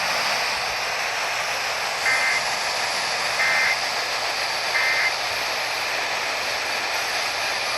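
Emergency Alert System end-of-message data tones: three short bursts of a two-tone warble about 1.3 s apart, over a steady hiss of radio static. They mark the end of the severe thunderstorm warning broadcast.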